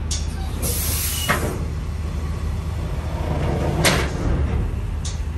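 Semi truck's diesel engine idling steadily, with several sharp clicks and knocks over it, the loudest about four seconds in.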